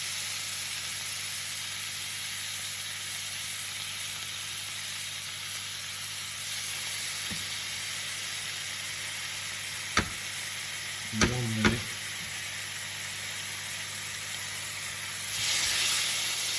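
Marinated fillet steak sizzling steadily as it sears in a hot, dry pan with no oil. A few sharp clicks come about two-thirds of the way through, and the sizzle grows louder near the end.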